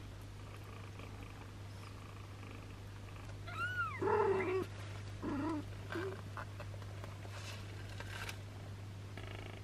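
Mother cat, a long-haired British cat, purring steadily while nursing newborn kittens. A little under four seconds in, a high arching mew rises and falls, followed at once by a louder, lower cry and a few shorter cries over the next two seconds.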